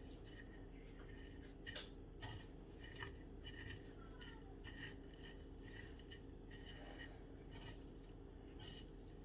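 Faint crackling and rustling of crushed Doritos tortilla chips as chicken pieces are pressed into them by hand. It comes as many short, irregular crunches over a steady low hum.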